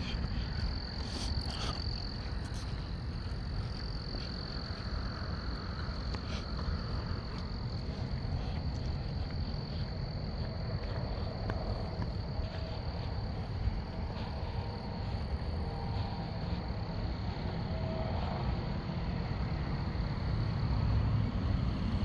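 Night chorus of frogs and insects: a steady high-pitched call that never stops, with a few short lower calls in the second half, over a steady low rumble of traffic.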